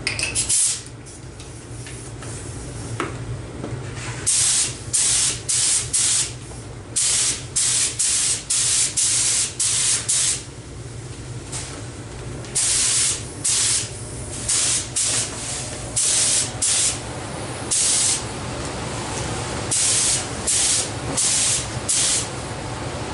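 Gravity-feed spray gun spraying primer in short bursts of hiss, the trigger pulled and released about every half second, in three runs with short pauses between them.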